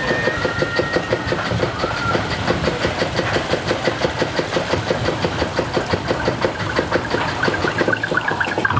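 Primeval Whirl spinning coaster car clacking rapidly and evenly, about five clacks a second, as the chain lift and anti-rollback ratchet carry it up the lift hill.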